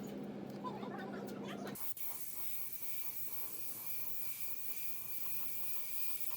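A steady hum cuts off abruptly under two seconds in. After it comes a continuous spray hiss, like compressed air or paint leaving a spray nozzle, with a thin steady whistle above it.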